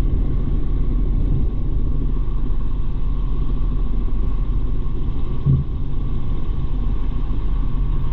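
Helicopter in flight: the steady drone of the rotor and engine, with a few constant tones running through it.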